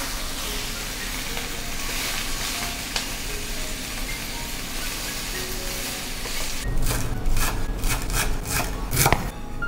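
Spinach, onion and garlic sizzling in a frying pan as they are stirred with a spatula. After about seven seconds this gives way to a chef's knife chopping dill on a wooden cutting board: a run of quick, even strokes, the last one loudest.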